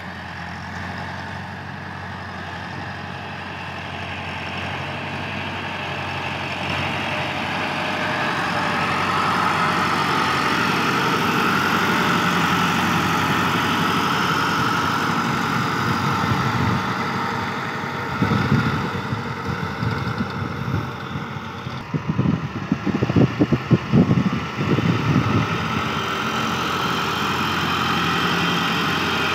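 Massey Ferguson 385 tractor's diesel engine working as it drags a rear blade through sand, its note swelling and easing with the load. Past the middle, irregular low thumps come for several seconds.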